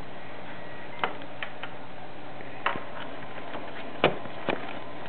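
Several short, sharp clicks and light knocks of objects being handled close to the microphone, the loudest about four seconds in, over a steady hiss.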